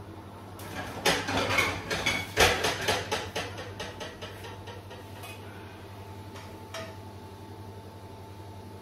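Clatter of crockery and cookware being handled: a quick run of clinks and knocks in the first few seconds, then a few single clicks, over a steady low hum.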